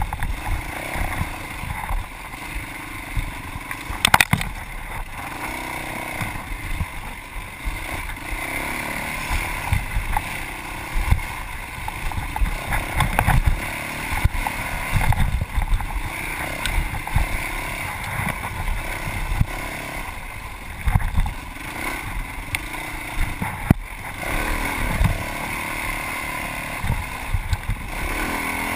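Yamaha WR450F's single-cylinder four-stroke engine running with its pitch rising and falling as the throttle changes while riding off-road, with a few sharp knocks, the loudest about four seconds in.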